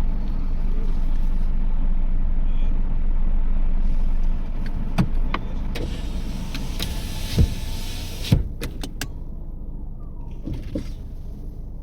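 Toyota Yaris driving, with steady engine and road rumble heard from inside the cabin. The rumble eases about four seconds in, and a few short sharp knocks or clicks follow.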